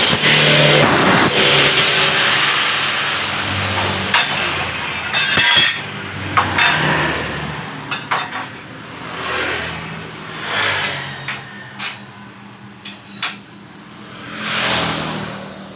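Metalworking sounds: a power tool's cutting noise fades out over the first few seconds. Then come scattered sharp metal knocks and clanks, with several short swells of engine-like sound between them.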